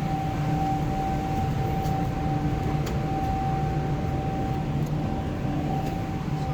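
Steady drone of a car ferry's machinery, a constant mid-pitched hum over a low rumble, with a few faint ticks.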